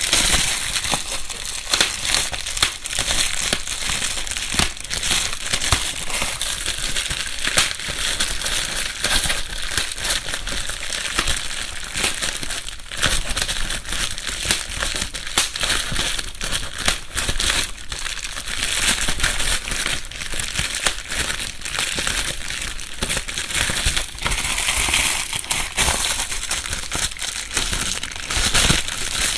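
Bubble wrap being handled and crumpled, with a continuous dense crackle and rustle of plastic and scattered small pops.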